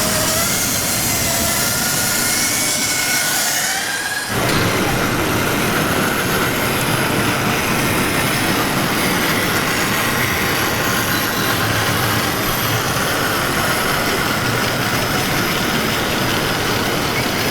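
Large-scale radio-controlled construction models at work, with electric motors and hydraulics whining. At first there are several rising whines over a hiss. About four seconds in, the sound switches abruptly to a steady machine hum with a high whine.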